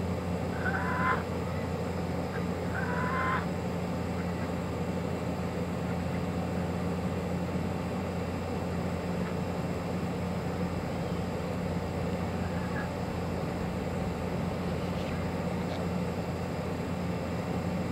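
Waterfowl from a mixed flock of ducks and a white domestic goose give two loud honking calls, about a second in and again about three seconds in, with a few faint calls later. A steady low hum runs underneath.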